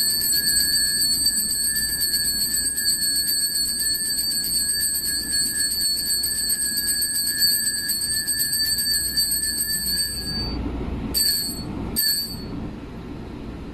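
Altar bell shaken in a fast, steady ring for about ten seconds, marking the elevation of the chalice at the consecration. It stops, then rings twice more briefly near the end as the priest bows before the altar.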